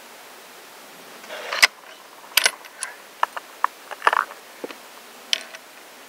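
Hands handling gear: a string of about nine sharp clicks and clacks over some four seconds, the loudest about a second and a half in.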